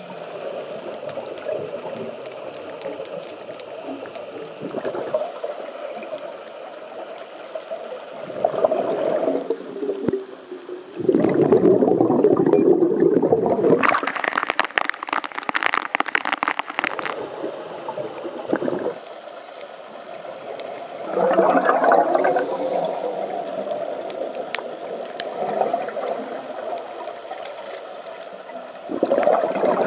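Underwater scuba ambience muffled through a camera housing: a diver's regulator exhaust bubbles come in loud gurgling bursts every several seconds. A stretch of hissing water splash comes in about halfway through, while the camera is at the surface.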